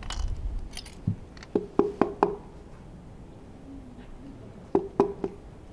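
Metal engine parts of a Honda RA100E V10 being handled during piston and connecting-rod removal: sharp light metallic clicks and knocks with a short ring, a quick run of four or five about a second in and three more near the end.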